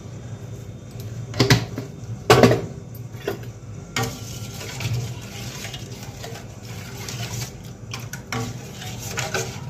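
A steel spoon stirring cumin-spiced water in a metal pot, clinking and scraping against the pot, with two sharp clinks about one and a half and two and a half seconds in and lighter clinks after.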